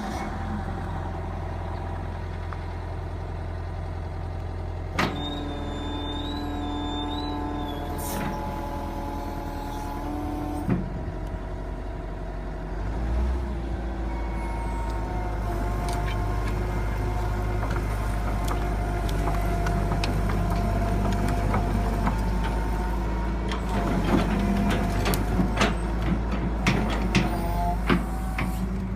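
Hitachi EX150LC excavator's diesel engine running steadily, with higher tones that waver in pitch as the machine works and load rising about halfway through. Occasional sharp metallic knocks come more often near the end.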